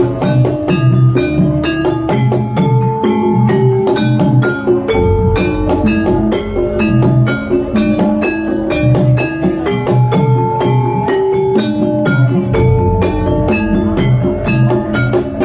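Gamelan music for an ebeg hobby-horse dance: a fast, even stream of struck metal-keyed notes over drum strokes.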